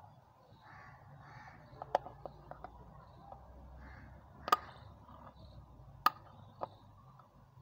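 Scissors snipping and piercing a plastic toilet-cleaner bottle: a series of sharp clicks and snaps, a quick cluster about two seconds in, then single louder snips at about four and a half and six seconds.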